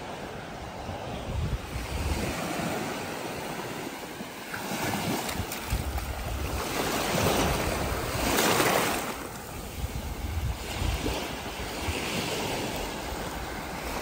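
Ocean surf breaking and washing up the sand, with wind buffeting the microphone. The wash swells to its loudest about eight or nine seconds in.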